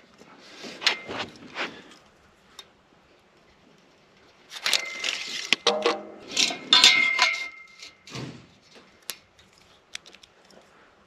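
Light metal clinking and scraping from steel carport purlin channels and a tape measure being handled, in short scattered bursts, with a brief metallic ring about seven seconds in.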